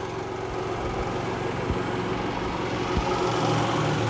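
Harbor Freight Predator 9500 inverter generator's 459cc single-cylinder engine running steadily, growing a little louder about three seconds in, just after it has begun powering the RV.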